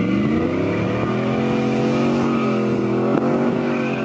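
Chevrolet Silverado pickup truck engine pulling as the truck accelerates, its pitch climbing in the first half second, then holding with a slight dip and rise near the end.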